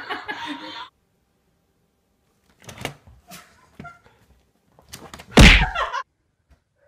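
Laughter cuts off just under a second in, then a few short knocks and thumps, with one loud heavy thud about five and a half seconds in.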